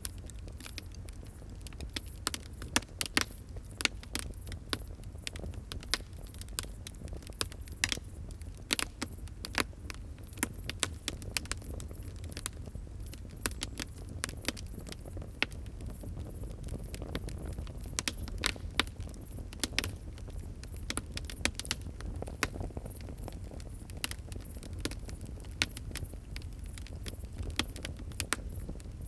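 Wood fire crackling: irregular sharp pops and snaps, several a second, over a steady low rumble of burning.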